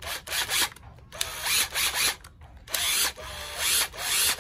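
A Hitachi 12DMR 12 V cordless impact driver running free in about four short trigger bursts. Its motor speeds up and drops back each time, and each run cuts off abruptly as the working brake stops it.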